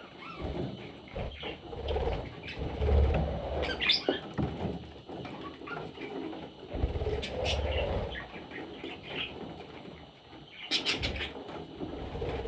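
Budgerigar chicks chirping, with rustling, fluttering and soft thumps that come and go in a few bouts.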